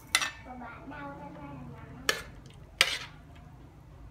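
A metal spoon scraping and knocking against a metal wok while scooping stir-fried beef and baby corn onto a plate. There are three sharp clinks, about a fifth of a second in, at two seconds and near three seconds.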